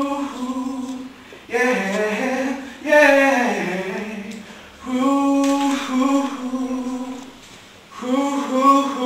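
A singer's voice singing unaccompanied in long held notes, phrase after phrase with short breaks between, one phrase sliding down in pitch about three seconds in.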